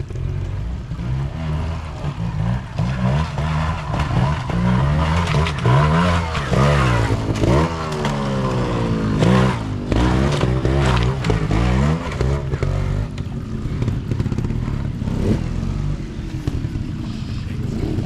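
Trials motorcycle engine revving up and down in repeated quick throttle bursts, its pitch rising and falling. A few sharp knocks come about halfway through.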